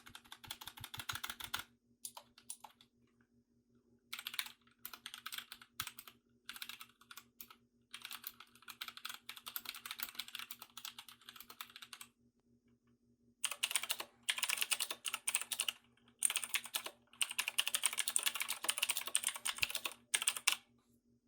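Typing on two mechanical keyboards in turn: first a quieter run of keystrokes on the Royal Kludge RK61 with brown switches, then a clearly louder run on a Razer BlackWidow Elite starting about thirteen seconds in. The brown-switch board is significantly quieter.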